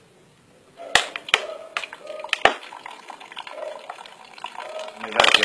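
Water filtered through a Care Plus portable water filter trickling and dripping into an empty plastic bottle, with scattered sharp clicks and a loud burst of plastic crackling near the end.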